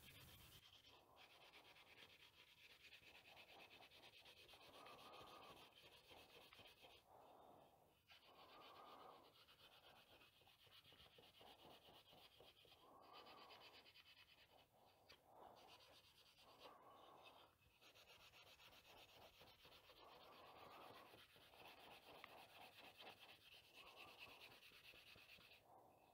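Fine steel wool rubbed over the wooden body of an antique moulding plane, very faint, in repeated strokes about a second or two apart.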